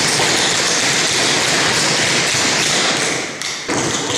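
A group of tap dancers' shoes striking a wooden studio floor in a dense clatter of many overlapping taps, thinning out about three and a half seconds in as the dancers stop.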